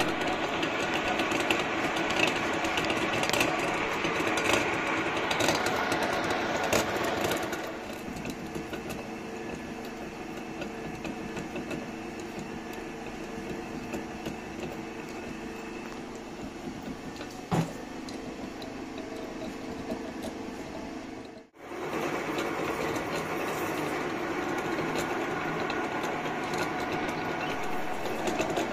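Gear-cutting attachment on a metal lathe, its spinning cutter milling the teeth of a small metal bevel gear: a steady machine hum with a rasping cutting noise, louder for the first seven seconds or so, quieter through the middle, and loud again after it cuts out for a moment about three-quarters through. A single sharp click about two-thirds of the way in.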